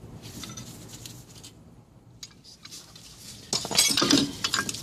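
Quiet at first, then about three and a half seconds in a quick run of metallic clinks and scrapes as the rusty front disc-brake caliper and its pads are handled and worked apart by hand.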